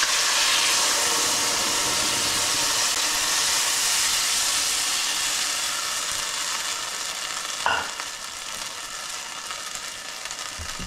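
Lobster stir-fry sizzling loudly in a hot wok as a chicken-broth-based sauce goes in, then slowly settling as it is stirred. A brief knock comes about eight seconds in.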